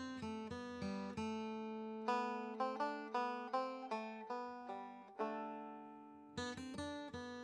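Background music: a plucked string instrument picking a quick melody, with one note left ringing for about a second near the end before the picking starts again.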